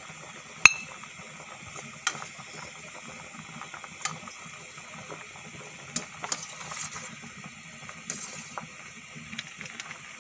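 Goat brains blanching in a stainless steel pot of water at a rolling boil: steady bubbling and hissing. A metal spoon skimming the foam clinks against the pot several times, sharpest once near the start with a short ring.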